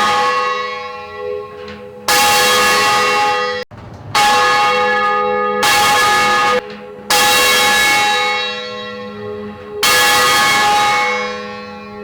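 Sheffield Cathedral's tower bells ringing: five loud strokes of the same pitch, each struck hard and ringing on with a slowly fading hum, and one ring cut off abruptly about three and a half seconds in.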